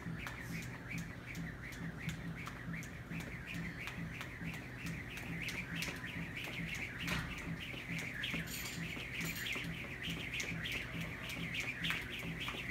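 Jump rope slapping a rubber gym floor in a steady rhythm, about three strikes a second, with many short, high squeaks between the strikes.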